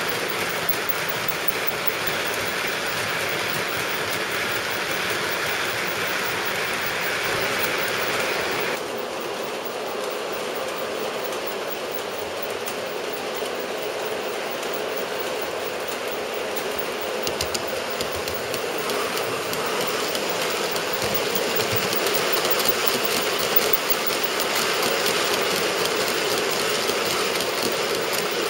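OO gauge model diesel locomotive and its rake of hopper wagons running on the track: a steady rumble and hiss of motor and wheels. The sound changes abruptly about nine seconds in, there are a few small clicks of wheels over rail joints and points, and it grows louder near the end as the train comes close.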